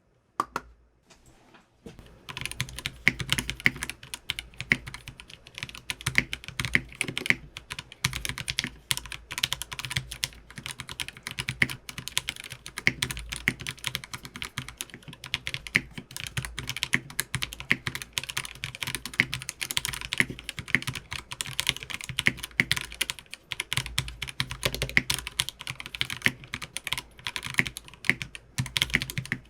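Fast, continuous typing on a custom mechanical keyboard with lubed ThicThock Marshmallow linear switches and PBT keycaps, giving a low-pitched bottom-out. It begins with a single keystroke, then steady rapid typing from about two seconds in.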